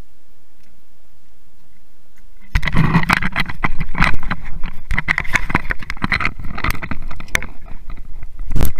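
Handling noise from a small action camera being picked up: fingers rubbing and knocking on the camera right over its microphone. The dense, loud run of scrapes and knocks starts about two and a half seconds in, after a faint steady hiss, and cuts off abruptly near the end.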